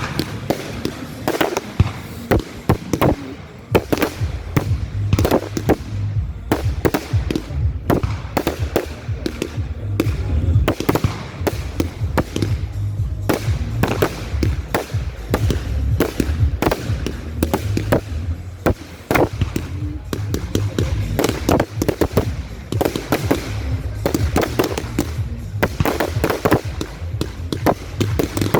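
Fireworks display: aerial shells going off in a dense, rapid run of bangs and crackles, with music playing underneath.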